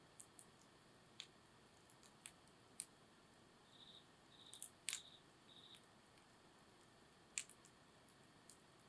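Wood campfire crackling faintly with sparse, irregular pops, the sharpest about five seconds in and again about seven and a half seconds in.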